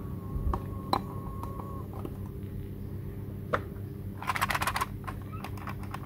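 Hard plastic toy pieces being handled: scattered single clicks, then a quick clattering run of clicks a little past the middle, over a steady low hum.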